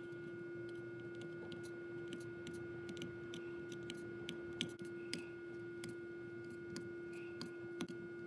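Ballpoint pen inking short tick marks along the edge of a wooden square: faint, irregular clicks as the pen tip strikes and lifts off the wood, a few each second, over a steady hum.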